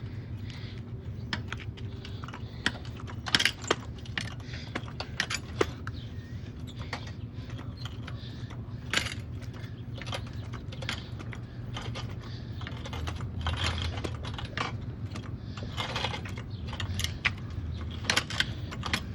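Hydraulic jack being pumped to lift a riding lawn mower: irregular metallic clicks and clanks from the jack handle and mechanism, over a steady low hum.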